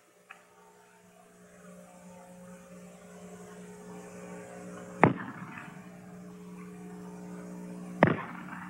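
Two shots from black-powder Snider-Enfield breech-loading rifles, about three seconds apart, the first about five seconds in. A steady low hum runs underneath and grows louder.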